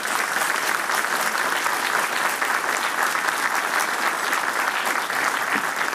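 Audience applauding steadily, a dense mass of many hands clapping.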